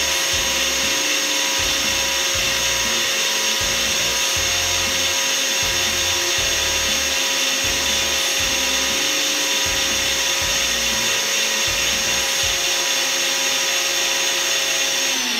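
Ninja Foodi Power Nutri Duo personal blender running at full speed on its Extract program, blending fresh fruit, juice and ice with a steady, high motor whine. Near the end the motor cuts out and the whine falls away as it spins down, with the program finished.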